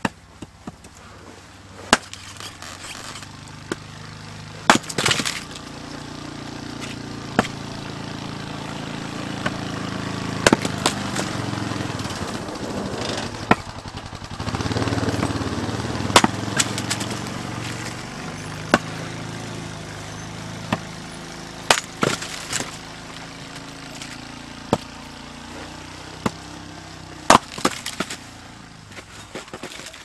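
An axe splitting firewood on a chopping block: a sharp chop or crack of splitting wood every one to three seconds, about a dozen strikes in all, some in quick pairs. A steady low hum runs underneath, loudest in the middle.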